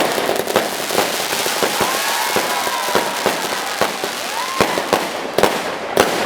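Fireworks going off in a dense string of sharp bangs over continuous crackling. A few whistles slide up and down in pitch partway through.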